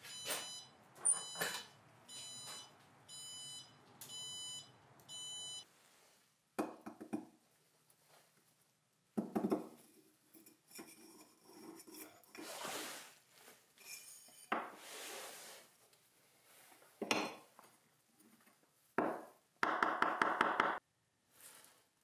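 Evenheat heat-treat oven controller beeping, a run of about seven short high beeps over five seconds, the signal that its firing program is complete. Then scattered metallic clanks and knocks of tongs and hot steel being handled, with a burst of clattering near the end.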